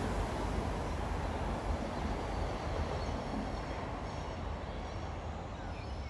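Sydney Trains Tangara electric suburban train departing, its running noise slowly fading as it pulls away.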